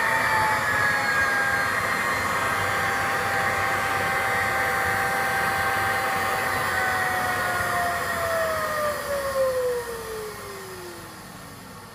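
DV-201 electric fan running with a high whine over a rush of air. About seven seconds in, the whine starts to fall in pitch and the noise dies away as the fan winds down.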